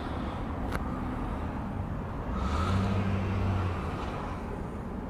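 Outdoor traffic noise: a motor vehicle's engine hum rises and passes, loudest from about two and a half to four seconds in, over a steady low rumble. A single sharp click just under a second in.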